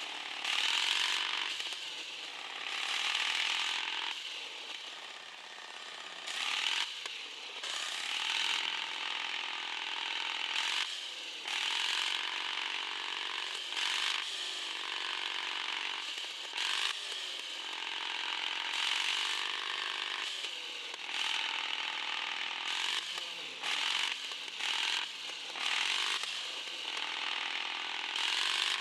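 Electric motor and gearbox of a radio-controlled 4x4 crawler whining, the pitch rising and falling and cutting in and out every couple of seconds, with scattered clicks from the drivetrain.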